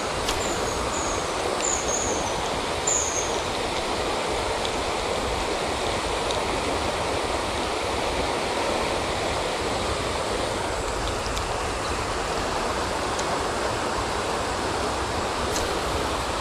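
Shallow river running over a gravel riffle: a steady rush of flowing water. Four short, high, falling chirps sound over it in the first three seconds.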